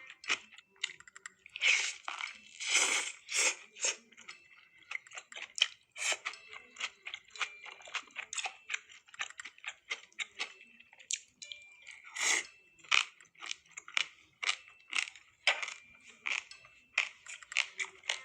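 Close-miked crunching and chewing of crisp food: many small crackles, with loud crunchy bites about two seconds in and again about twelve seconds in.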